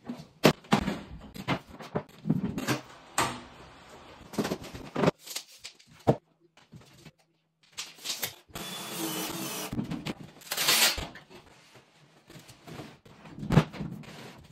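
Handling noises from fitting a built-in oven: a string of clicks and knocks from plastic tool cases and fittings, with a rasping scrape of about two seconds past the middle and a louder, shorter scrape just after.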